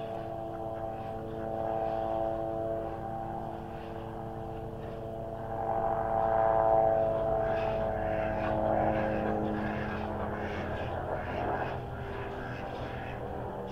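A passing engine drone with a steady pitch. It grows louder about six seconds in, and its pitch slides down as it passes.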